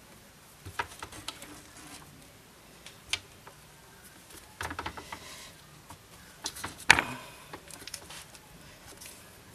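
Hand-stitching a bow grip with a needle and waxed thread: scattered light clicks and rustles as the thread is pulled through, with a rustling patch about five seconds in and the loudest, sharpest click just before seven seconds.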